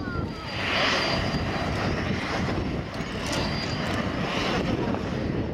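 Jet aircraft engine noise: a steady rumble with hiss and a faint high whine, swelling briefly about a second in.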